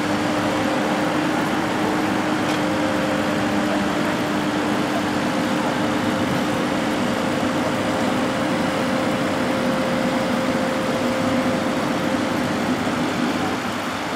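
Gremo 1050F forestry forwarder's diesel engine running steadily, with a steady whine over it, as its loader crane works the logs.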